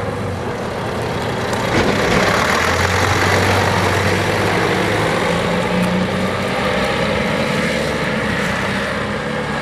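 Single-deck diesel bus engine pulling away and driving past close by, loudest about two to four seconds in as it goes by, then easing off as it moves away.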